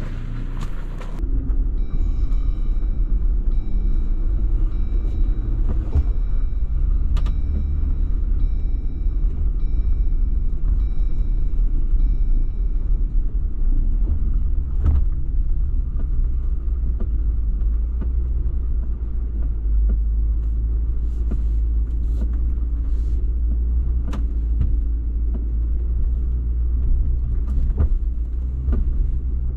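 Off-road Jeep running slowly over a trail, its engine giving a low, steady drone, with a few sharp knocks scattered through.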